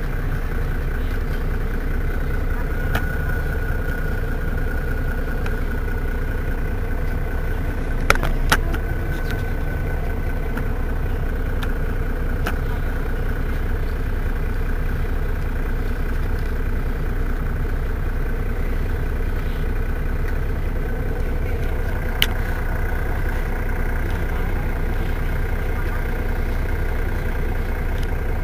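Mercedes-Benz Citaro city bus engine idling steadily while the bus stands at a stop. A couple of sharp clicks come about eight seconds in, and another one later.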